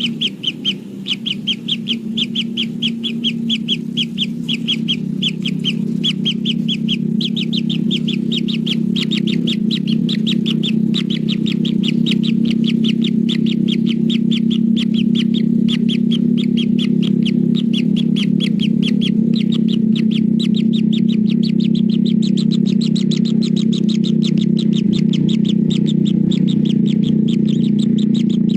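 Kingfisher calling in a fast, unbroken series of short high notes, several a second, growing busier partway through. A steady low hum runs underneath.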